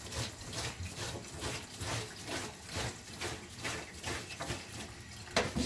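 Burdock root being scrubbed clean by hand at a kitchen sink: rhythmic rasping strokes, about three a second.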